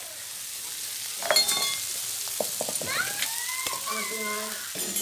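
Guar bean pods sizzling in a hot metal kadai as a metal spoon stirs and scrapes them, with a steady high hiss and a sharp ringing metal clink about a second in.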